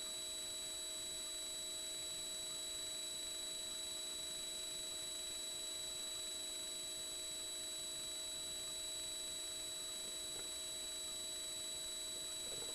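Steady electronic hiss with a constant high-pitched whine and fainter hum tones, unchanging throughout, with a couple of faint soft knocks near the end.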